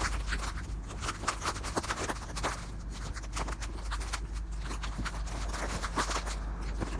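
Footsteps crunching through deep snow, an irregular run of short crunches, over a low steady rumble of wind on the microphone.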